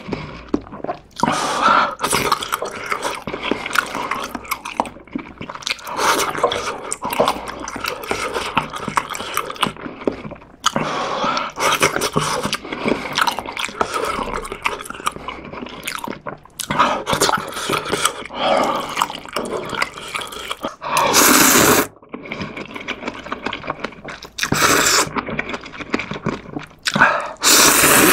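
Close-miked eating sounds: wet chewing of ramyeon noodles and toppings, with two loud noodle slurps, about three-quarters through and at the very end.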